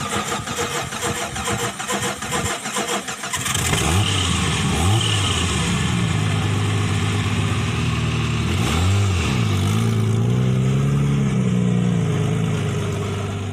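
An engine cranks and fires, then revs up and down several times and settles into a steady run before fading out near the end. It is the sound effect laid under an off-road channel's logo intro.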